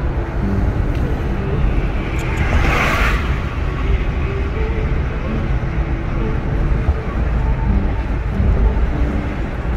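Steady road and tyre rumble heard from inside a moving car's cabin. About two and a half seconds in there is a brief whoosh as another car passes close alongside.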